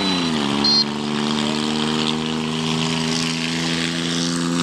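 John Deere 5050D tractor's three-cylinder diesel engine running hard with a steady, loud drone. Its pitch drops in the first half second and then holds. A brief high-pitched beep sounds just under a second in.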